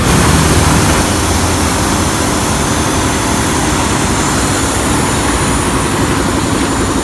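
A machine running steadily: a low hum under a loud, even hiss, a little louder in the first second.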